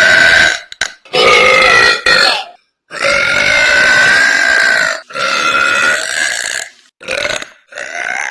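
A woman belching loudly, one long drawn-out burp after another, about six in a row, each lasting one to two seconds with brief pauses between.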